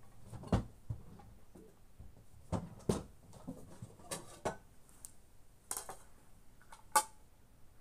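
Scattered clinks and knocks of plates and a spoon being handled during a meal, the sharpest one near the end.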